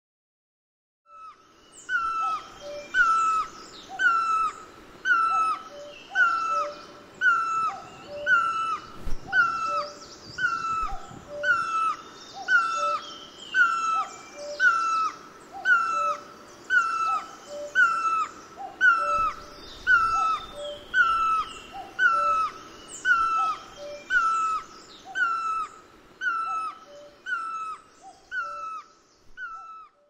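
A bird calling one short whistled note over and over, about one and a half times a second, each note dipping in pitch at its end. Fainter chirping of other birds carries on behind it.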